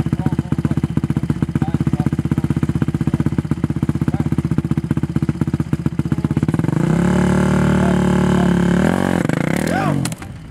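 Dirt bike engine idling with a rapid, even beat, then revved hard and held about seven seconds in. Near the end its note wavers and falls away as the front wheel lifts.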